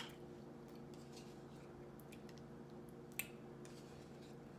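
Faint clicks and scrapes of a fork against a small plastic cup as sour cream is scooped out, with one sharper click about three seconds in, over a low steady hum.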